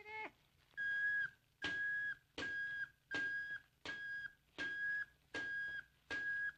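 Steam teakettle with a long, flute-like spout whistling eight short notes on the same pitch, about one a second, each dipping slightly in pitch as it ends.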